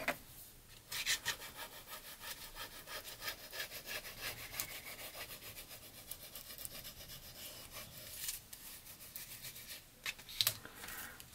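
A bone folder rubbed back and forth over vellum and cardstock, many quick faint scraping strokes as the paper is pressed and smoothed down.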